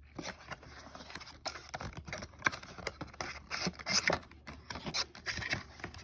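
Cardboard trading-card blaster box and its wrapping being opened and handled: faint, irregular scratching, scraping and small clicks.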